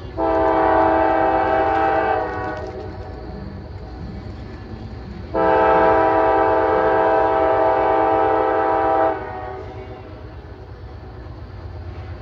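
Freight locomotive air horn sounding two blasts, each a steady chord of several notes: a short one of about two seconds, then a longer one of about four seconds. A low rumble runs underneath.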